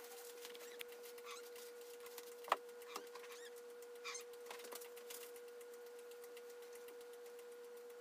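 Faint clicks and rattles of a kitten's claws and paws gripping the wire bars of a metal crate, with one sharper metallic clink about two and a half seconds in, over a steady hum.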